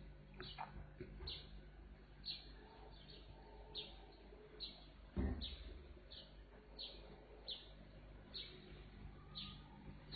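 A small bird chirping over and over, short high chirps a little more often than once a second. A single dull thump comes a little past the middle.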